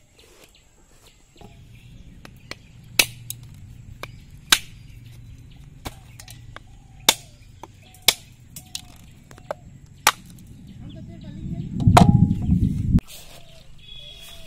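A heavy knife blade striking a husked coconut held in the hand to crack its shell: sharp single knocks, one every second or two. A brief low rumble comes near the end.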